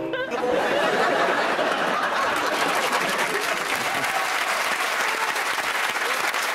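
Studio audience applauding, a dense, steady clapping from a large crowd.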